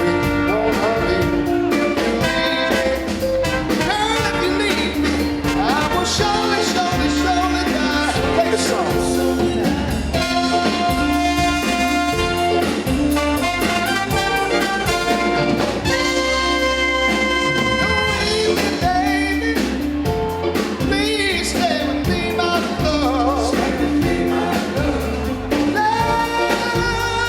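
Band music: a soul song carrying on through a stretch between its sung lines, with sustained instrumental notes.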